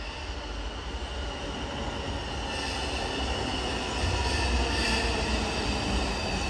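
R142 subway train approaching through the station, rumbling and getting louder, with high whining tones over the rumble.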